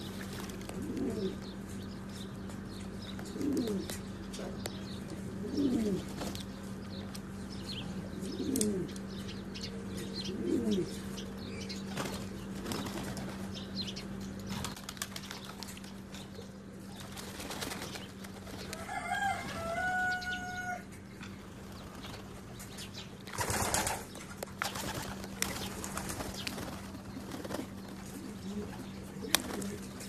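Homing pigeons bathing in a shallow tub of water, wings beating and splashing in sudden flurries, with about five pigeon coos in the first ten seconds over a steady low hum.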